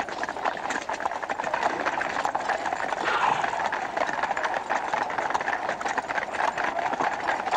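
Footsteps of a crowd walking on stone paving, mixed with a horse's hooves clopping: a dense, continuous clatter.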